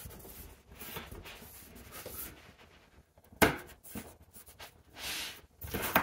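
Scraping and rubbing as a picture frame's backing is forced into place by hand, with a sharp knock about three and a half seconds in and a few more short knocks near the end.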